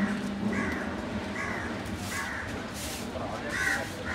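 Crows cawing: about six short caws at irregular intervals.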